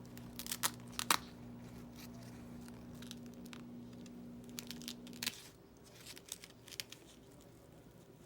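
Scattered sharp clicks, rustles and crinkling of something being handled, the loudest about a second in and again around five seconds in, over a steady low hum that cuts off about five seconds in.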